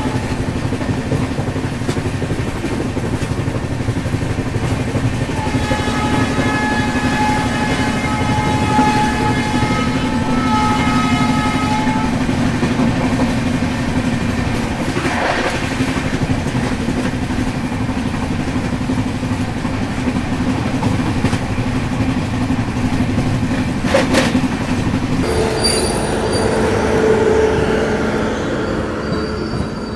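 Shatabdi Express coach running at about 122 km/h, heard at an open door: a steady loud rumble of wheels on rail and rushing air. A long pitched tone sounds for about six seconds from roughly five seconds in. Near the end the sound changes as the train runs alongside another train.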